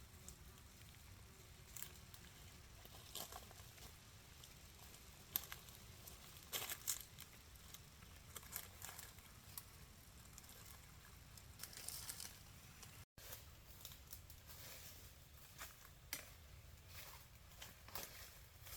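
Faint, scattered crackling and rustling over a low hiss, with a brief dead gap about thirteen seconds in.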